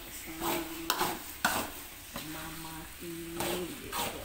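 A spatula scraping and stirring thick, sticky wajik (glutinous rice cooked down with sugar) in a pan, in several irregular strokes. A low steady hum comes and goes between them.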